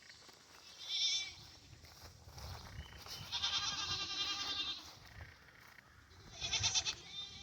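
Dairy goats bleating three times: a short bleat about a second in, a long wavering bleat through the middle, and another short bleat near the end.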